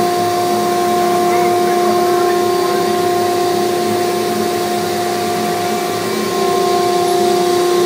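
Shop-built CNC router running: the spindle has just spun up to a steady high whine, heard over the drone of the vacuum hold-down system.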